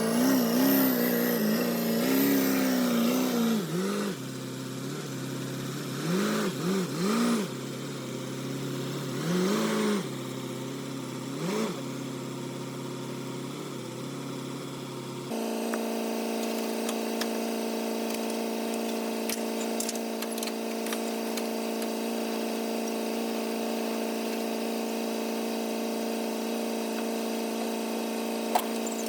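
Zero-turn mower engine running, its speed rising and falling in repeated revs for the first half. About halfway through it changes abruptly to a steady, even drone.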